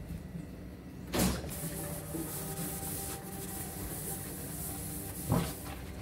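Sponge scrubbing a soapy stainless steel kitchen sink over a steady low hum, with two short, sharp noises, one about a second in and one near the end.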